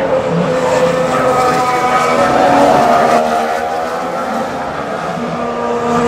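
2014 Formula One cars' 1.6-litre V6 turbo engines running on the circuit. Their pitch rises and falls slowly, loudest about halfway through.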